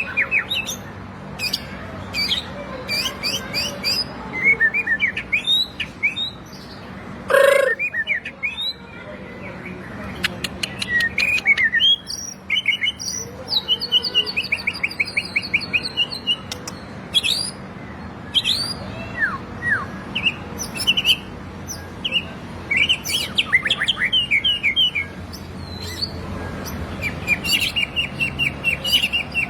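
White-rumped shama singing: a varied run of short clear whistles, pitch glides and rapid trilled phrases, with a brief harsher note about seven seconds in.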